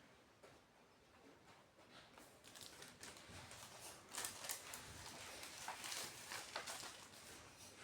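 Faint rustling and light clicks of things being handled, starting about two seconds in, as when packaging or a record sleeve is moved about by hand.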